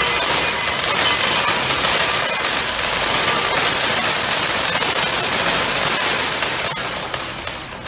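A row of bengala spark-fountain fireworks burning together, a steady dense fizzing crackle like heavy rain, easing briefly near the end.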